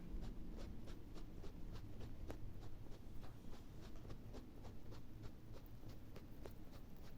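Faint, small sharp clicks and scratches from a pet rabbit, irregular, several a second.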